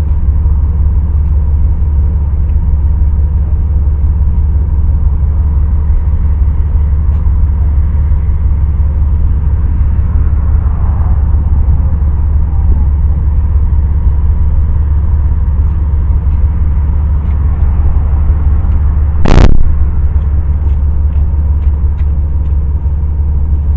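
Steady low rumble of a car's road and engine noise heard from inside the cabin while driving, with one loud, sharp thump about three quarters of the way through.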